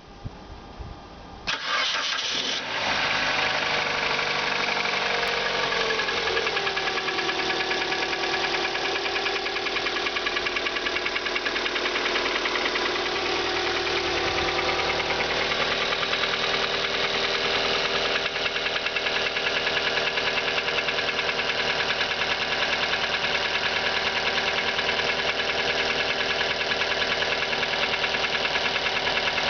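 Mitsubishi Lancer X engine starting about a second and a half in, then settling from a fast idle down to a steady idle over the next few seconds. Under it runs a fast, even knock from under the bonnet, which the owner says cannot be diagnosed without removing the engine.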